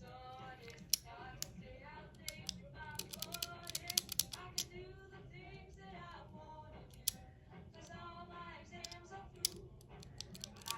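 Scattered sharp clicks and clacks from a Master Lock 875D combination padlock's dial and shackle being worked by hand, thickest about three to four seconds in. Faint singing plays underneath.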